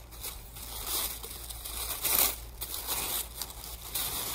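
Thin white packing wrap crinkling and rustling as it is pulled and crumpled off a small refractor telescope tube. It comes in irregular crinkles, loudest about two seconds in.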